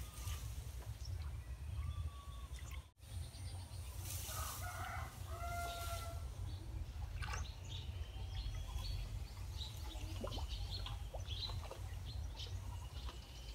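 Farm chickens calling and clucking, with short rooster-like calls about a third of the way in, over a steady low rumble and scattered small bird chirps.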